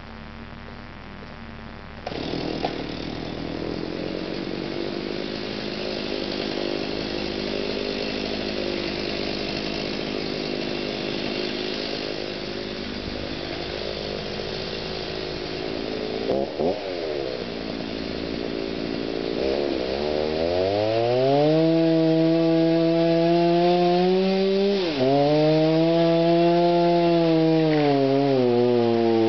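Chainsaw running and cutting into a cedar trunk to fell it. It picks up sharply about two seconds in, then climbs to a high, steady full-throttle whine about twenty seconds in, with a brief drop in revs a few seconds later.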